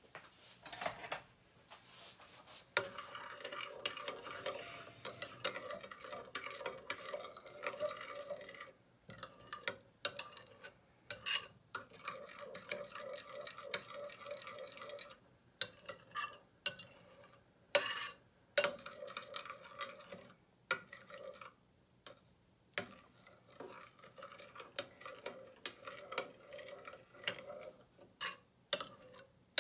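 Metal spoon stirring liquid in a ceramic bowl, scraping round the bottom in stretches that stop and start, with sharp clinks of the spoon against the bowl now and then.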